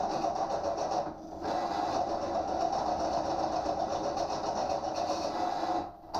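Pillar drill running, its bit cutting into steel with cutting oil on it, a steady grinding chatter. It dips briefly about a second in and stops near the end. The bit is cutting better with the oil.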